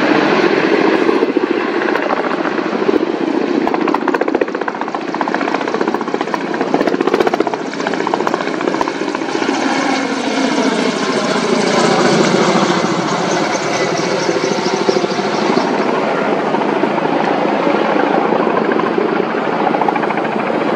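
Kamov Ka-32 coaxial-rotor helicopter flying with a water bucket slung beneath, its rotors and turbines running steadily; around the middle the pitch of its hum slides as it passes.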